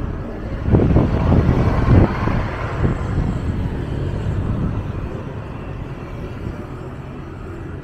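City bus driving past close by: its engine and tyre noise swells loud just before a second in, then fades over the next few seconds as it moves away.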